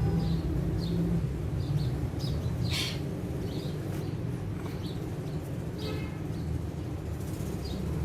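Birds chirping in short, scattered notes over a steady low rumble, with a louder harsh call about three seconds in and another call near six seconds.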